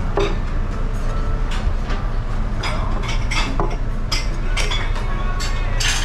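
Restaurant dining-room noise: a steady low hum with scattered sharp clinks of drinking glasses and dishes, including water glasses being moved about on a wooden table.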